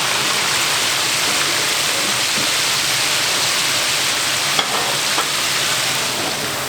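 Chicken deep-frying in hot oil: a steady, loud sizzle, with a couple of faint clicks about four and a half and five seconds in.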